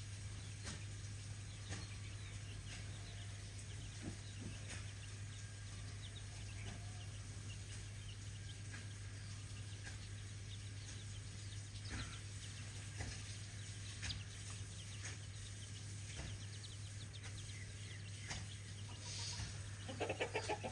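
Chickens clucking and calling faintly: scattered short chirps, with a quick run of clucks near the end, over a steady low hum.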